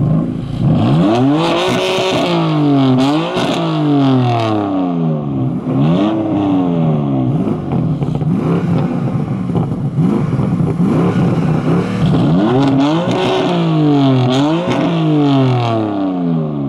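A stationary BMW sports car's engine being revved hard, about seven times. Each rev climbs steeply in pitch and then falls back toward idle.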